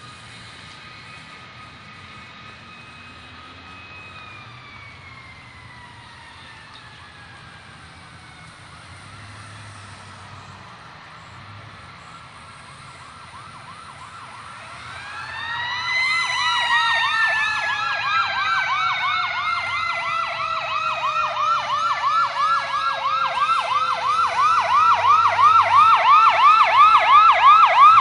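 Fire truck sirens approaching. A siren tone holds steady, then slowly falls in pitch. About halfway through, a loud fast yelp of about three rises a second cuts in over long falling siren tones, and it grows steadily louder.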